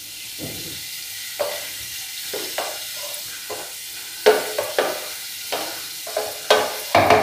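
A spatula scraping cooked onion and tomato off a steel plate into a steel mixer jar: a series of short scrapes and taps, more frequent in the second half, over a steady faint hiss.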